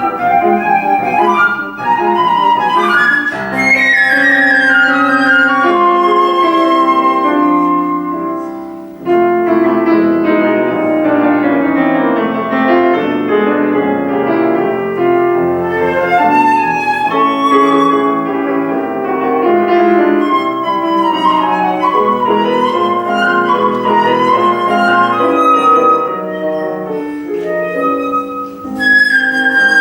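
Concert flute and piano playing a classical piece, the flute carrying the melody in quick runs over the piano accompaniment, with a brief lull about nine seconds in.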